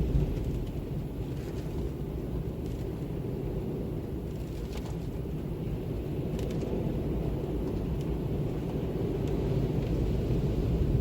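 Steady, deep wind rumble that swells a little just after the start and again near the end, with a few faint scattered ticks.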